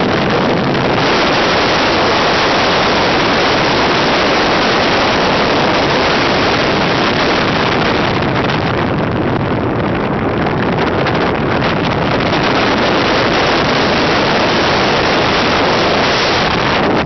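Steady, loud rush of airflow over the onboard camera of a Swift S1 model aerobatic glider in flight: wind noise with no engine tone.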